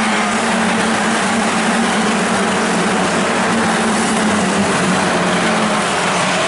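Several Formula 4 single-seaters running at speed, their turbocharged four-cylinder engines blending into one steady engine note over a dense rush of noise.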